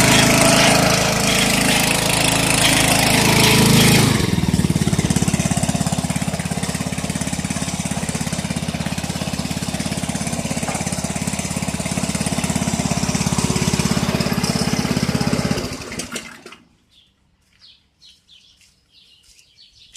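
Gasoline engine of a homemade concrete mixer, which drives the mixer's hydraulic motor, running fast and then dropping to a lower, steady speed about four seconds in. It shuts off about sixteen seconds in and dies away. Faint bird chirps follow.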